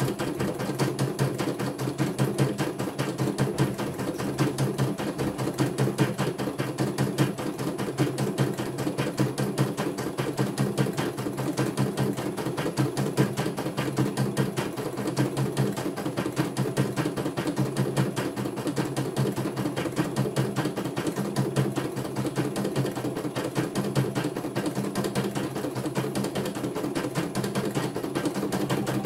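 CNY E900 computerized embroidery machine stitching out a design, its needle bar running in a rapid, even stitch rhythm as the embroidery unit moves the hoop.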